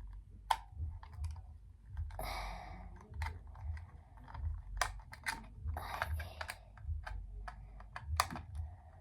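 Hands working a plastic drone remote controller, trying to get a part of it off: many irregular sharp plastic clicks, with a few short scraping rustles.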